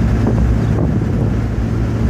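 Cabin sound of a custom 1982 Pontiac Firebird with a rear-mounted big-block V8, cruising: a steady low engine drone under road and wind noise. The engine is fairly quiet at cruise.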